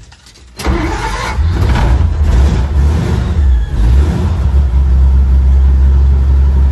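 Dodge M37's flathead inline-six starting about half a second in, on its newly fitted Pertronix electronic ignition. It runs unevenly for a few seconds, then settles into a steady idle.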